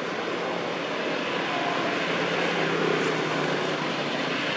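Steady motor-vehicle noise: a low engine hum under a broad hiss, swelling a little around the middle.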